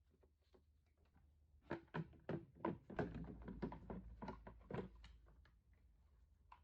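A quick run of about a dozen knocks and clunks lasting about three seconds, over a faint low rumble.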